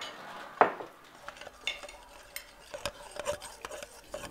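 Kitchen clatter of cutlery and dishes: a spoon stirring and clinking, with scattered light knocks. The sharpest knock comes just over half a second in.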